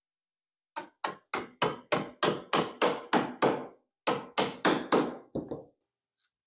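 Hammer tapping a small pry bar to drive it under a carved wooden ornament glued to a window cornice, working it loose. About fifteen quick, sharp strikes, roughly three a second, with a brief break about halfway, tailing off into a few lighter taps near the end.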